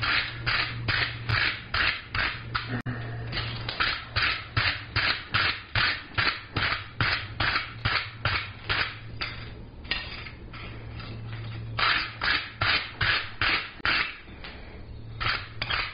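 Steel wire brush scrubbed back and forth over a hot forged mild-steel hook lying on an anvil, about three scratchy strokes a second, brushing the piece clean while it is hot. The brushing pauses briefly about ten seconds in and again near the end.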